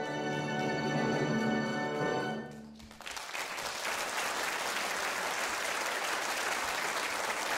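Theatre orchestra holding a closing chord that dies away about two and a half seconds in. The audience then breaks into applause, which goes on steadily.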